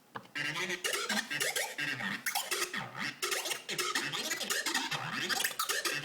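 Korg Electribe ESX sampler playing a pattern from a single sample holding two sounds, the reverse button flipping one part between them, giving rapid chopped hits with pitches sliding up and down. It starts a moment in after a brief silence.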